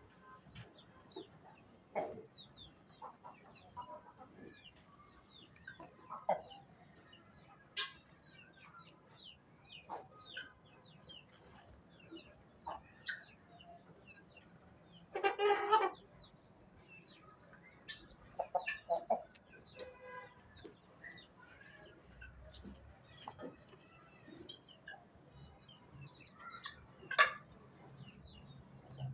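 Chickens clucking with scattered short calls, and one louder call lasting about a second midway. A sharp click near the end.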